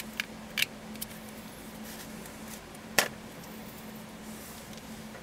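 Small plastic clicks and taps from handling a sensor-cleaning swab and a dropper bottle of cleaning solution: a few light clicks in the first second, then one louder, sharp click about three seconds in.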